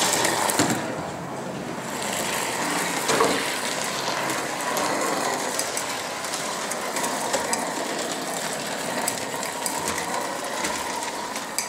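Handmade live-steam model tram with a two-cylinder oscillating double-acting engine running steadily along the track, its small engine and wheels clattering mechanically. A hiss fades out about a second in.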